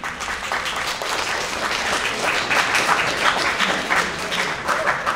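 Audience applauding, many hands clapping at once; it swells toward the middle and eases off slightly near the end.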